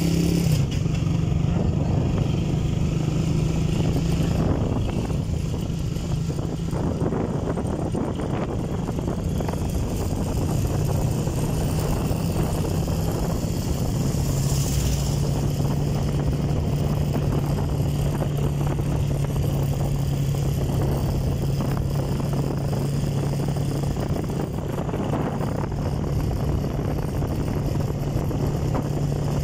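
Motor vehicle engine running with a steady hum at cruising speed, under wind and road noise. An oncoming box truck goes by about halfway through.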